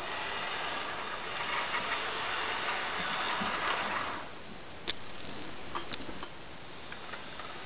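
HO-scale model freight train running on sectional track, its motor and wheels whirring loudest for the first four seconds as it passes close, then dropping off sharply. The cars' wheels keep rolling after that, with a few sharp clicks.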